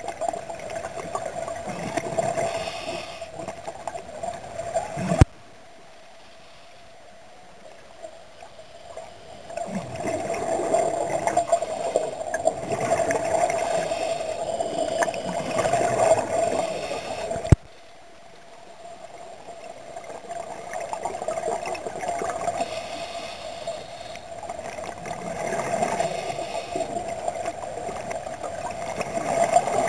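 Underwater sound of scuba breathing: exhaled bubbles gurgling in swells every few seconds over a steady hum. Two sharp clicks, about 5 and 17 seconds in, are each followed by a sudden drop to a quieter stretch.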